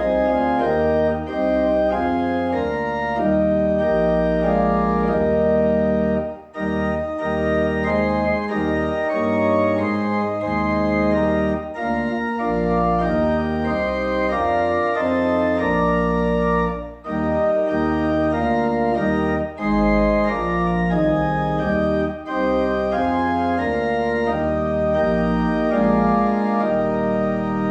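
Organ playing a closing voluntary after the service: sustained chords over deep bass notes, with short breaks between phrases.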